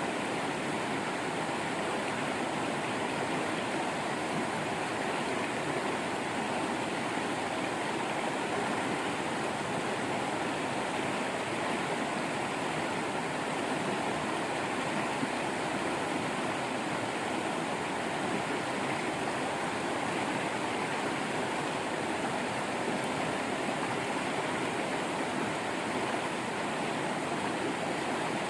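Waterfall running in a steady, even rush of falling and splashing water, with no breaks or changes.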